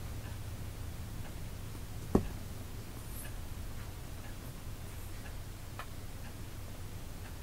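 Quiet room tone with a steady low hum, a single thump about two seconds in, and a few faint scattered ticks.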